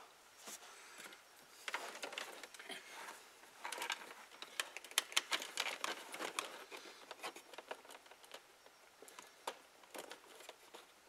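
Faint rustling and scattered light clicks of hands handling a dash cam cable and plastic interior trim at the truck's A-pillar.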